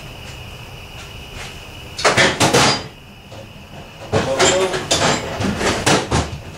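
Sheet-metal door skin being shifted by hand on its door frame: a short burst of metallic clunks and rattles about two seconds in, then a longer run of them from about four seconds.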